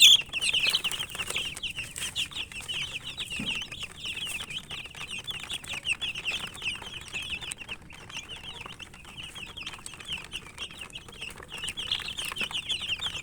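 A brood of domestic chicken chicks peeping together without pause: many short, high, falling chirps overlapping one another.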